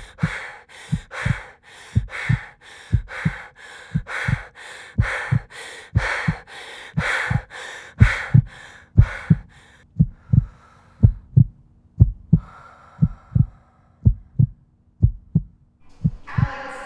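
Heartbeat sound effect: a quick, regular pulse of low thumps standing for a racing heart in distress. For the first ten seconds a hissing rush pulses in time with the beats, then the thumps go on alone with a faint steady hum under them.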